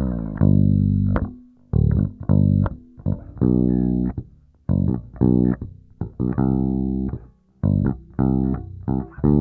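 Squier Deluxe Dimension Bass V five-string electric bass played with the fingers, a line of separate plucked notes that each ring and die away, some with short rests between. Its volume, treble, mid and bass controls are set flat at centre, giving the bass's plain, uncoloured tone.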